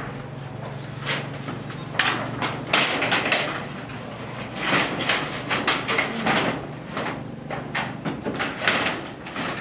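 Irregular knocks, scrapes and clattering, with sharp strokes bunched around two to three and a half seconds in, near five to six and a half seconds in, and near eight to nine seconds in. A low steady hum runs under the first three seconds.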